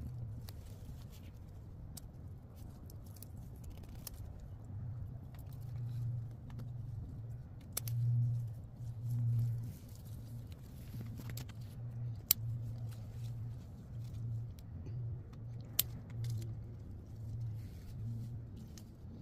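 Ripe tomatoes being picked by hand from the vine: leaves rustling, with a few sharp clicks of stems snapping. Under it runs a low hum that rises and falls.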